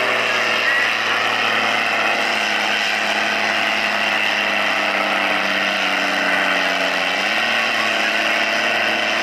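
Ursus 1204 farm tractor's diesel engine running hard as it drags a weight sled. Its note sinks slowly as the engine labours under the load, then picks up again about seven seconds in.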